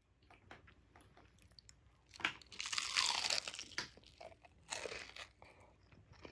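Close-miked crunching of bites into crispy panko-breaded fried shrimp, the breading crackling as it is chewed, with the loudest crunches about two to three seconds in and again near five seconds.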